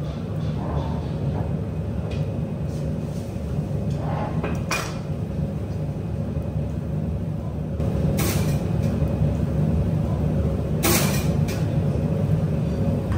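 A steady low rumble of background noise with three short rushes of noise, growing louder from about eight seconds in.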